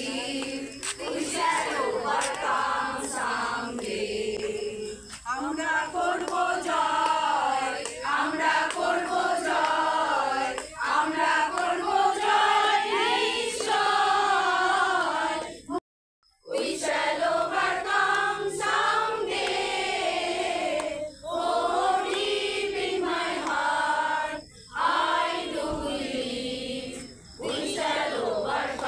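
A group of people, women and children among them, singing a song together in sung phrases. The sound drops out suddenly for a moment about halfway through.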